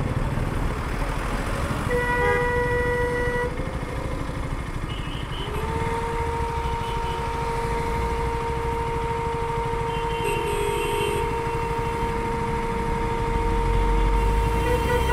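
Vehicle horns in stalled traffic over a low engine rumble. One horn sounds briefly about two seconds in. A little later another horn comes in and is held in one long steady blare to the end.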